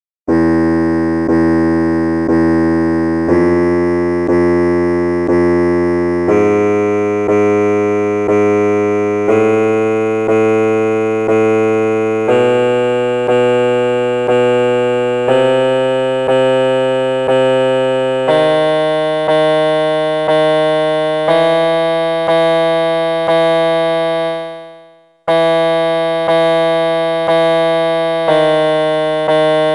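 Electronic keyboard sounding the Mayamalavagowla raga scale as a guide for sargam practice: each note struck three times about a second apart, stepping up through one octave (Sa Re Ga Ma Pa Da Ni Sa). After a brief pause near the end, the descending scale begins from the top Sa.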